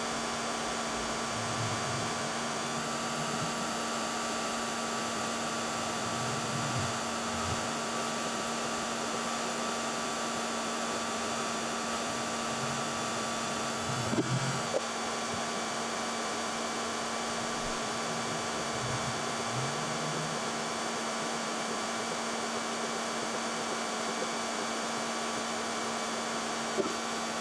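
Hand-held hair dryer blowing steadily with an even whine, heating the fender so the paint won't crack and the metal is more pliable. A couple of brief clicks come about halfway through and again near the end.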